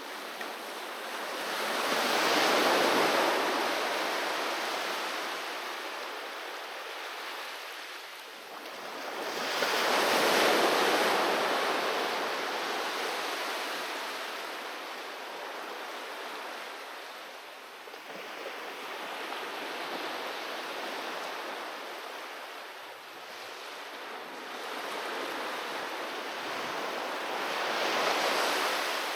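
Sea waves breaking on a beach and washing back, three large swells about a third of the way, a tenth of the way and near the end, with a steady surf hiss between them.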